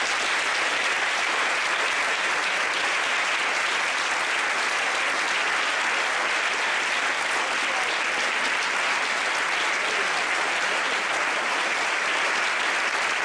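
Audience applauding, even and steady.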